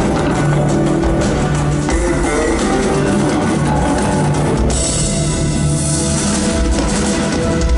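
A live band playing loudly, with electric bass guitar and drums keeping a steady beat. A little over halfway through, a bright cymbal-like wash comes in for about two seconds, and held, sustained notes follow.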